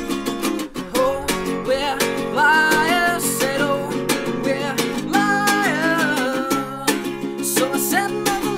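A man singing, accompanying himself on a strummed acoustic guitar with a steady strumming rhythm.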